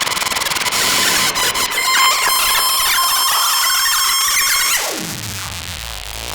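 Make Noise XPO Stereo Prismatic Oscillator in a Eurorack modular patch: a dense, bright, harsh synthesizer tone with many overtones. About five seconds in, the pitch dives steeply down into a low drone.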